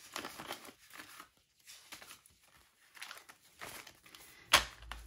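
Paper banknotes rustling and crinkling as a stack of cash is handled and shuffled, in soft irregular bursts, with one sharp tap about four and a half seconds in.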